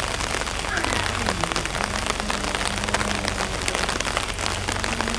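Steady rain pattering on hard surfaces, with many small drop ticks.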